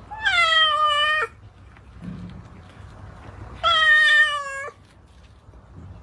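A domestic cat meowing twice, with about two and a half seconds between the calls. Each meow is long and drawn out, about a second, and falls slightly in pitch.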